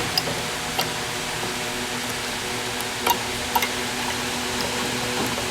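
Steady fan-like hiss with a faint hum, broken by a few sharp clicks and taps.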